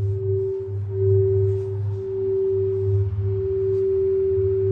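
A singing bowl sounding one steady, sustained tone, over a low hum that swells and fades in slow pulses.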